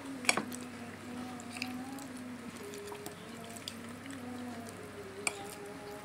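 A metal spoon clinks sharply against a ceramic plate twice, just after the start and near the end, with small ticks of eating in between. Soft background music with long held notes runs underneath.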